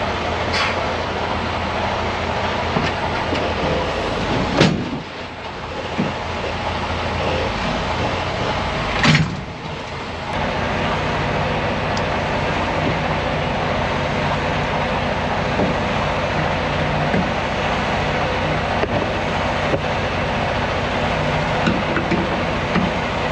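Semi-truck diesel engine idling steadily, with two sharp bangs in the first half.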